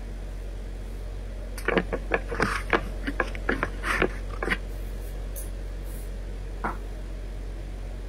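Clothes being handled on a plastic hanger: a quick run of clicks and rustles for about three seconds, then one more tap, over a steady low hum.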